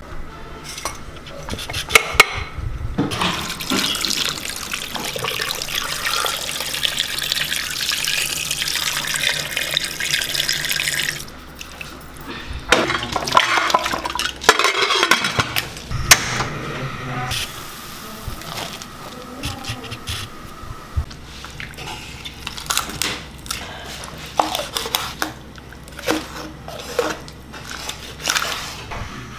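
Water pouring into a pressure cooker full of raw buffalo bones for several seconds, stopping abruptly about eleven seconds in, then a few seconds of louder splashing and clatter. Later come scattered sharp knocks of a knife cutting raw chicken on a wooden chopping board.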